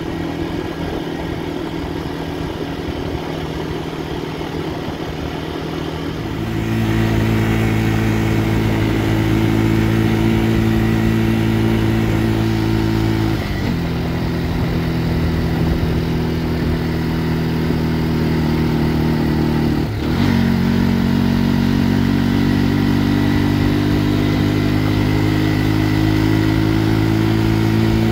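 ATV engine running steadily under way. About six seconds in it gets louder as the throttle opens; it dips briefly twice, then its pitch climbs near the end.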